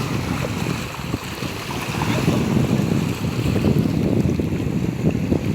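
Wind buffeting the microphone in a low, gusting rumble over the wash of sea waves.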